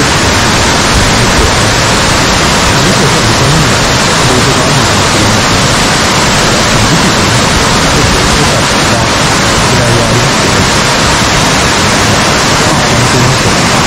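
Rushing water of Yudaki falls, a loud, steady, unbroken hiss of water cascading down rock.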